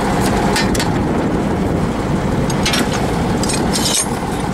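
T-150K tractor's diesel engine idling steadily. Steel wrenches clink in a metal toolbox a few times over it.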